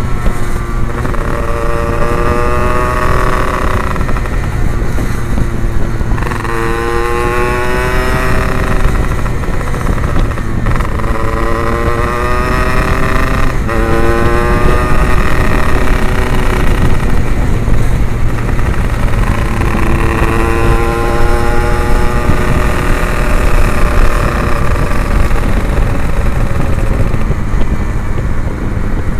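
Yamaha RX-King 135cc two-stroke single running through an Abbox C20 aftermarket exhaust while being ridden, its pitch climbing and dropping back again and again as the rider accelerates and shifts up, about five times.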